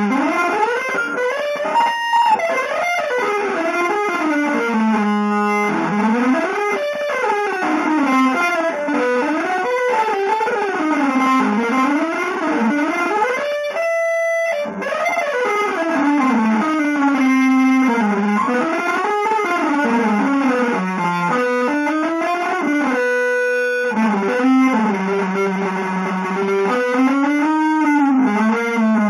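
Electric guitar playing one fast, unbroken melodic line that sweeps up and down in smooth arcs, pausing on a few held notes.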